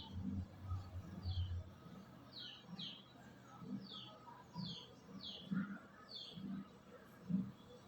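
A small bird chirping repeatedly: short chirps that fall in pitch, one about every half second to a second. Low, dull thuds sound irregularly underneath.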